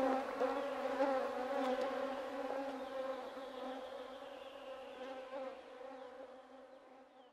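Buzzing of a flying insect: a steady hum with a few overtones, fading out slowly.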